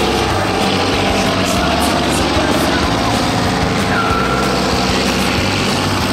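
John Deere 8R tractor's six-cylinder diesel engine running steadily at high load as it drags a pulling sled through mud.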